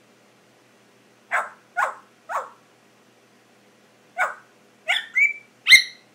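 African grey parrot imitating a dog barking: three short barks, a pause of about two seconds, then four more in quicker succession, the last the loudest.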